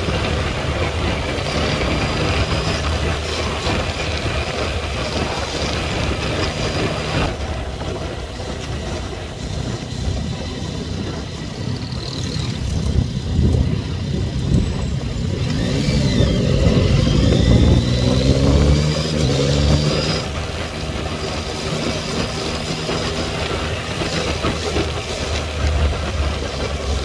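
Yamaha MT-09's three-cylinder engine running while riding, over wind noise on the microphone. About 16 s in it revs up hard, its pitch rising as the bike accelerates.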